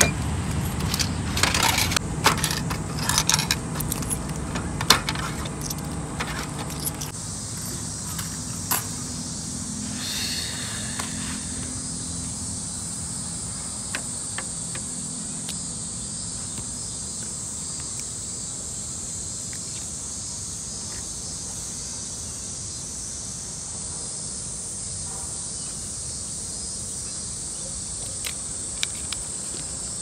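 Coins clinking as they are fed into a drink vending machine for the first several seconds. A steady high drone of summer cicadas runs throughout.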